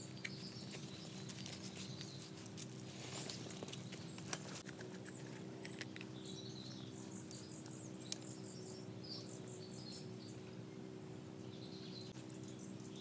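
Birds chirping repeatedly, with light scattered clicks and taps of bamboo sticks and a drink can being handled on the ground, and one sharp click about eight seconds in. A faint low steady hum runs underneath.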